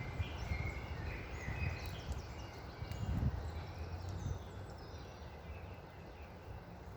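Songbirds chirping and twittering in quick overlapping calls over a low rumble of wind; the bird calls die away after about four and a half seconds, leaving the wind.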